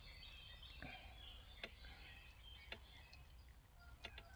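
Near silence: faint outdoor background with faint bird chirps and a few small sharp clicks.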